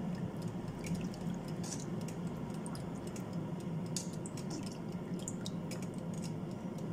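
Gravy made from Bisto powder heating in a saucepan while it is stirred continually with a spoon, to thicken it: a steady liquid bubbling and sloshing, with scattered light clicks of the spoon against the pan.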